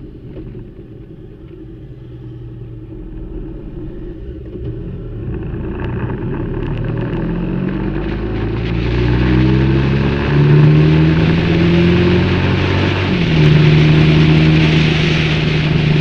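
Motorcycle engine pulling hard through the gears, its pitch climbing and breaking twice at upshifts, about ten and thirteen seconds in. Wind rush builds and gets louder as the speed rises.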